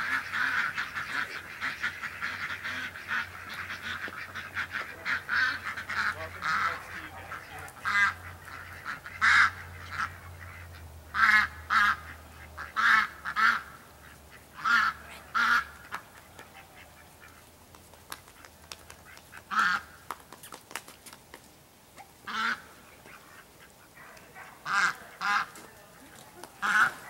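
A flock of domestic ducks quacking, with a busy run of calls for the first several seconds, then single quacks and pairs every second or two.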